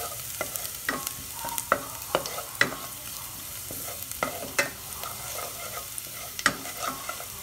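Minced garlic sizzling in vegetable oil in a stainless steel pot, sautéing to light brown, while a spatula stirs it and clicks and scrapes against the pot's bottom and sides at irregular moments.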